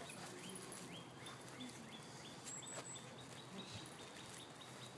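Faint, regular high bird chirps, about three a second, each sliding down in pitch, with a brief higher triple peep about halfway through.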